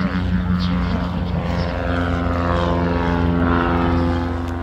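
Propeller airplane engine running as the plane flies in the airshow comedy act, the engine note shifting as it moves.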